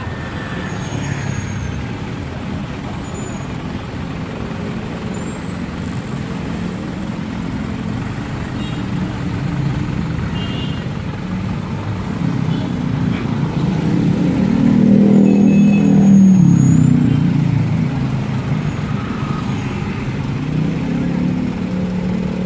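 Trucks passing one after another in traffic, their engines running in a steady low drone; the loudest one goes by about fifteen seconds in.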